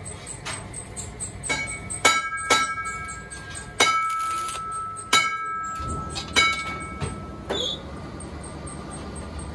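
Rolled steel band for a tractor wheel rim ringing like a bell under a series of about eight sharp metal knocks. A stick welder's arc is struck on it about four seconds in to tack the seam, giving a brief crackle.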